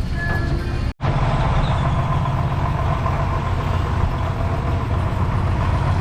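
Motor vehicle engine running steadily with a low, even drone. A sudden dropout to silence about a second in marks an edit, and the drone runs on unchanged after it.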